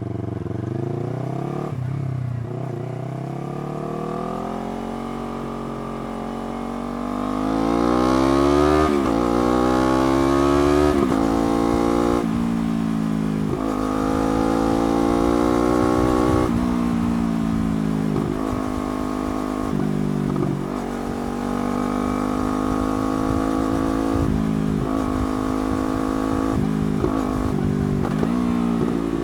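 Yamaha R3's parallel-twin engine through a slip-on exhaust, pulling hard: the revs climb and drop at each upshift several times in the first half. In the second half the revs rise and fall more briefly and often.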